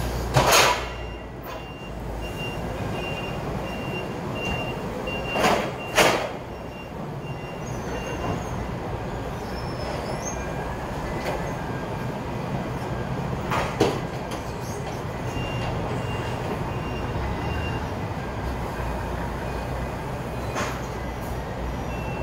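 Forklift working beside a truck: a steady low motor hum, its reversing alarm pipping in two stretches, and several loud knocks as it handles the pallets.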